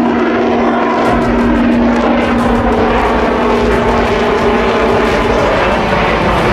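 Aircraft engine running steadily and loudly, with a held low tone that fades out about five seconds in.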